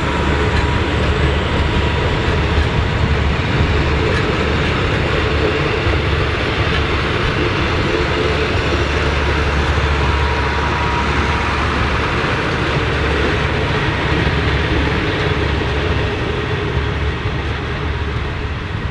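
Vintage all-steel passenger carriages of a heritage train rolling past: a steady rumble of wheels on the rails. A faint steady whine runs through the first half.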